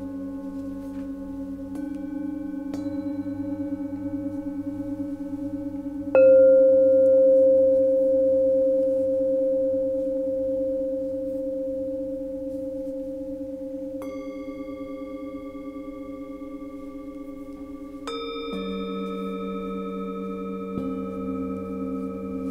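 Singing bowls struck with mallets one after another, each tone ringing on and overlapping the others with a slow pulsing wobble; the loudest strike comes about six seconds in.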